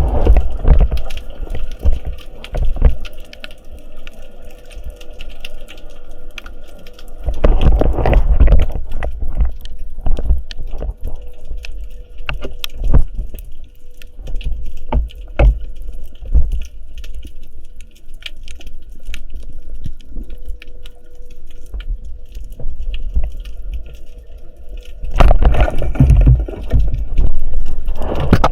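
Water sloshing and bubbling around a spearfisher's camera, with many small clicks throughout. Heavier surges of rushing water come at the start, about eight seconds in, and near the end.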